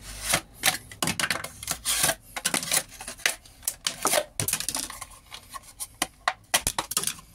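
A hook-shaped arc blade, made from a spatula, slicing through a thin plastic detergent bottle. The plastic crackles and crinkles in a quick, irregular run of sharp snaps and short scrapes as the blade goes in and out of it.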